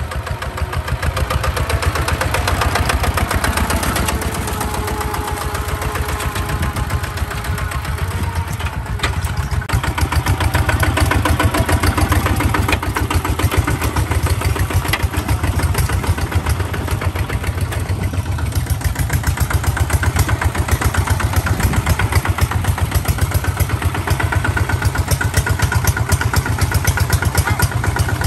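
Two-wheel walking tractor's single-cylinder diesel engine running steadily under load as it pulls a disc plough through wet paddy mud, with a rapid, even chugging.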